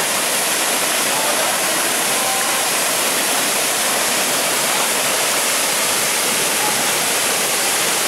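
Véu de Noiva (Bridal Veil) waterfall pouring into its plunge pool: a loud, steady, even rush of falling water.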